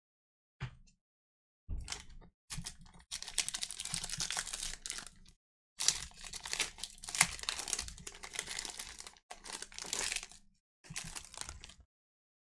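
Trading-card pack wrappers being torn open and crinkled, with cards handled, in several rustling stretches separated by short pauses.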